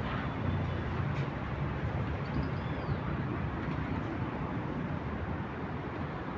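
City traffic ambience: a steady low rumble of passing road traffic, with a faint brief high squeal a little over two seconds in.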